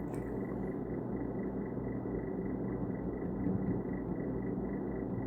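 Steady low background hum and rumble with no distinct events, the kind of noise a fan, air conditioner or distant traffic makes.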